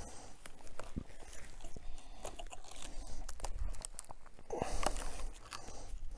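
Paracord being pulled and wrapped around a pine pole and tree trunk: dry scraping and crunching of the cord on bark, with scattered small clicks.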